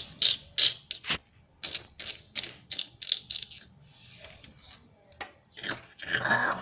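Cartoon chewing sound effect: a quick run of short crunchy chomps, about three a second, then a brief pause and a few more chomps, with a louder, denser burst of noise near the end.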